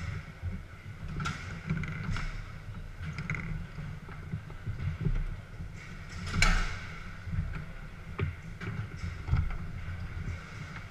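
Foosball being played on a Garlando table: irregular knocks and clacks of the ball against the plastic players and of the rods, with the loudest hit about six and a half seconds in, over a steady low rumble.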